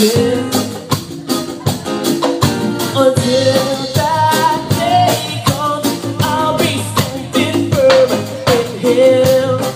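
Live reggae band playing: acoustic guitars over a drum kit and hand percussion, with a singer's voice carrying the melody.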